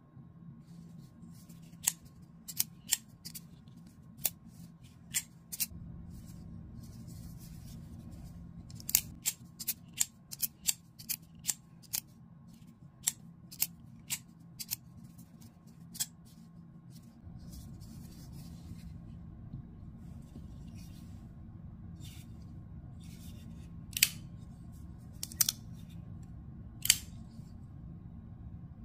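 Kizer Escort folding knife being worked in the hand: its blade swung open and shut with sharp metallic clicks as the clutch lock engages and releases, coming in quick runs through the first half, then a few louder single clicks later on. A steady low hum sits underneath.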